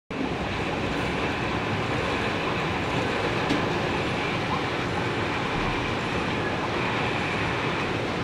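Model freight train rolling past on layout track behind two diesel locomotives: a steady running noise of wheels on rail.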